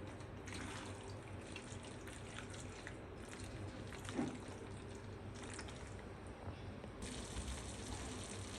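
Faint bubbling and sizzling of pasta in a thick cheese white sauce cooking in the pan, with small scattered pops and a soft knock about four seconds in.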